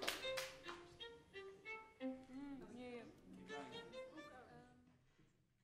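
The last of the applause dies away, then a violin plays a quiet run of single notes with slides and vibrato that fades out.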